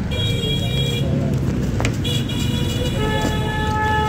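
Vehicle horns honking in traffic over the steady low rumble of a moving vehicle. A high-pitched horn sounds for about a second near the start and again from about two seconds in, and a lower horn joins at about three seconds and holds.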